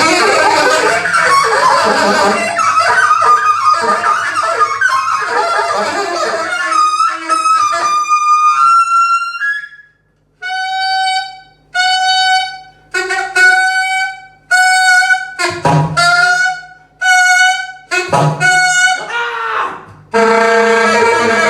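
Instrumental music with a wind or brass lead: a dense, busy passage, then about seven separate held notes of roughly a second each, mostly on one pitch, and a fuller sustained chord near the end.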